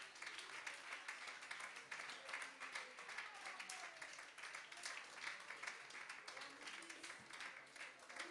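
Faint audience applause: many hands clapping at once in a dense, uneven patter.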